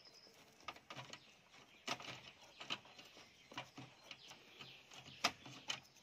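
Faint, irregular crackles and ticks of PVC insulation tape being pulled off the roll and wound around twisted wire joints, with the wires being handled. The sharpest crackles come about two seconds in and again a little after five seconds.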